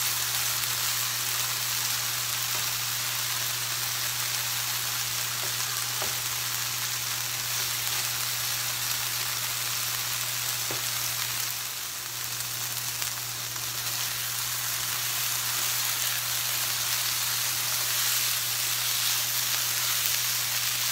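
Diced chicken sizzling steadily in a hot nonstick frying pan, its water cooked off so the pieces are browning, with the odd light scrape of a spatula being stirred through.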